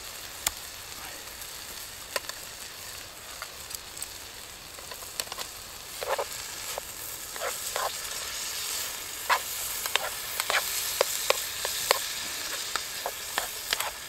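Diced bacon, sausage and onion sizzling steadily in a small Trangia storm-cooker pot. From about six seconds in, a spoon stirring the pieces and clicking against the pot.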